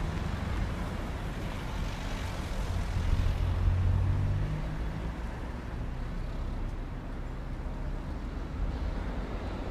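Road traffic and street ambience, with a louder low engine hum for a couple of seconds around three to four seconds in.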